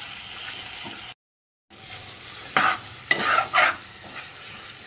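Marinated mutton frying in oil in a pressure cooker pot, with a steady sizzle, while a steel spatula stirs and scrapes against the pot several times in the second half. The sound cuts out briefly about a second in.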